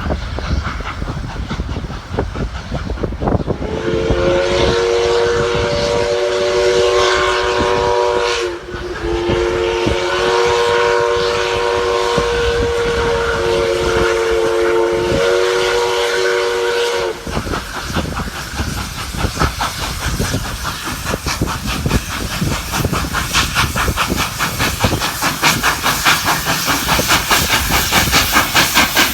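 The several-note chime whistle of D59-class steam locomotive 5917 sounds two long blasts. Then the locomotive's exhaust chuffs rapidly and evenly, growing louder near the end, with steam hissing.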